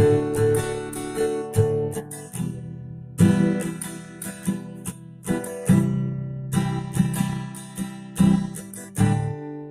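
Instrumental background music on acoustic guitar, chords struck and let ring, with no singing.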